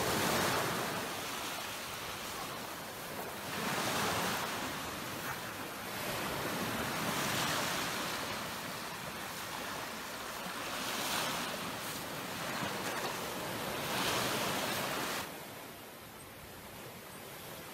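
Sea waves breaking and washing on the shore, swelling about every three to four seconds, a little quieter near the end.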